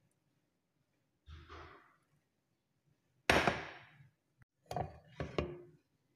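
Kitchenware being handled: a soft scrape about a second in, one loud knock at about three seconds, then two quicker knocks near the end.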